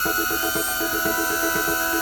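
Electronic dance music with a steady beat about twice a second and fast repeating synth stabs.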